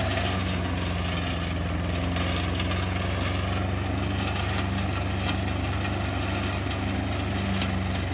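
Flail mower's 11 HP Iseki diesel engine running steadily at an even speed.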